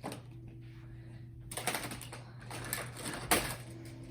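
Plastic magnetic building tiles (Magna-Tiles) clicking and clattering as they are handled and snapped together: a click right at the start, a rattle of clicks about a second and a half in, and another run ending in a sharp click a little past three seconds.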